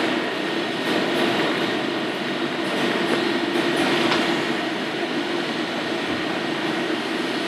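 Steady mechanical rushing noise with a faint constant hum, as of machinery or ventilation running in a commercial kitchen.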